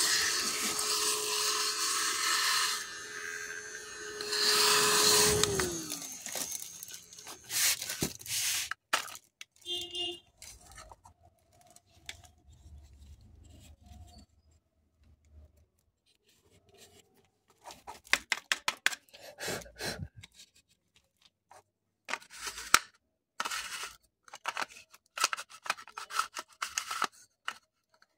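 Mini USB desktop vacuum cleaner's small electric motor running with a steady whine and hiss, then switched off about five seconds in, its pitch falling as it spins down. After that, scattered plastic clicks, scrapes and rattles as the vacuum and its parts are handled.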